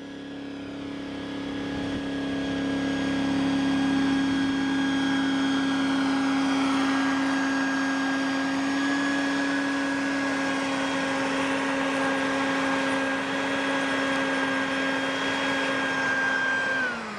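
A 120-volt Stinger prospecting vacuum runs with a steady, high-pitched motor whine over the rush of suction, getting louder over the first few seconds. Near the end it is switched off and its pitch falls as the motor spins down.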